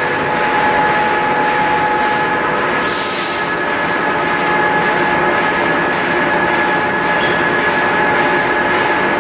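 Wood pellet production line machinery running steadily: a loud constant drone with several steady whining tones. A brief hiss about three seconds in.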